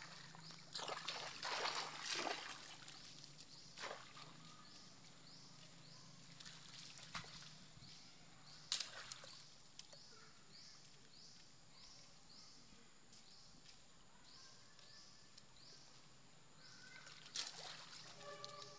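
Shallow muddy puddle water splashing and sloshing as young macaques sit and paddle in it. The splashes come in short bursts, the strongest about a second in, near the middle and near the end. Faint repeated falling chirps run about once a second.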